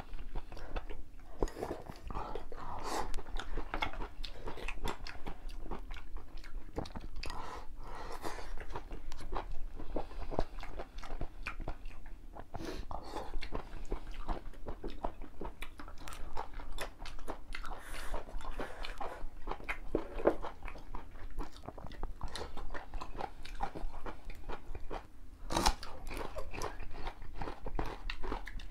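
Two people eating at a table: close-up chewing, biting and crunching of food, with irregular clicks of chopsticks against porcelain bowls.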